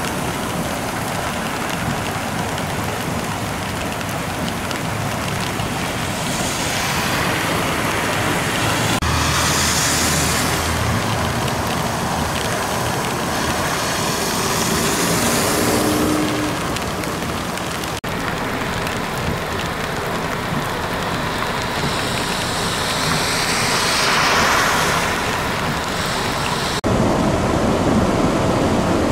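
Cars and vans driving through deep water on a flooded road, their tyres throwing up spray with a rushing hiss that swells and fades as each one passes, over the steady noise of heavy rain. Near the end, rain and spray beat on a car window and the hiss gets louder.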